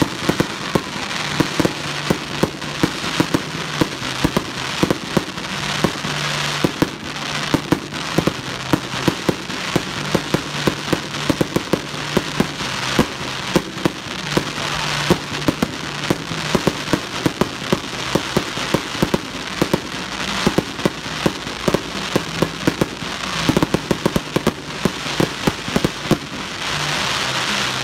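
Dense, rapid cracks and pops, many each second, over a low steady hum that steps between two pitches.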